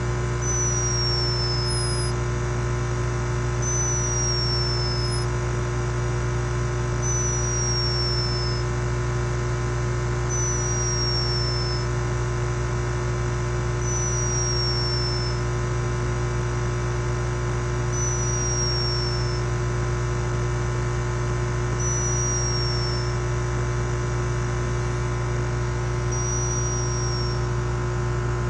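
A sleeping person's whistling snore: a thin, high whistle that falls in pitch on each breath, eight times at about one breath every four seconds, over a steady low hum.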